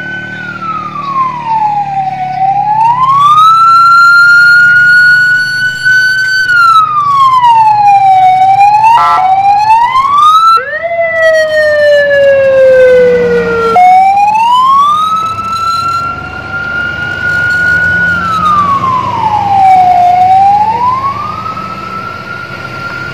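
Ambulance electronic siren wailing, rising and falling slowly about once every six seconds, with a brief switch to quicker, changing tones in the middle as it passes close. It grows loud and then fades near the end, over a low engine hum.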